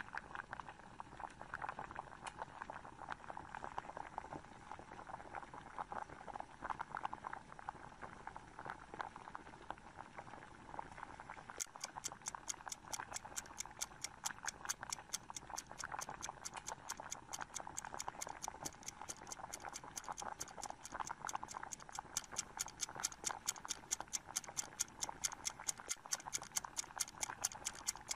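Steady fine fizzing and crackling of gas bubbles rising from an electrolysis rust-removal bath with rusty cast-iron meat-grinder parts submerged in it. About halfway through, a fast, even clock-like ticking starts and keeps going.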